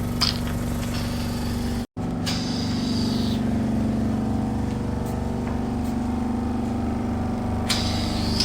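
Suction pump of a microdermabrasion facial machine running with a steady hum, with spells of hissing as air is drawn through the handpiece. The sound cuts out for a moment about two seconds in.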